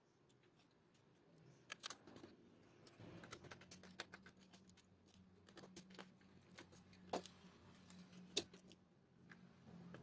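Faint, scattered clicks and taps of the plastic tray and frame of a disassembled DVD drive being handled, the sharpest about eight seconds in. A faint steady low hum runs underneath from about three seconds in.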